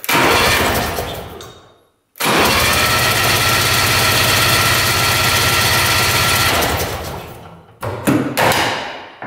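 Electric starter cranking a 400cc two-stroke engine with its spark plugs out: a short crank, then a steady crank of about five seconds, then a brief one near the end. It cranks over pretty good, so the starter and engine turn freely.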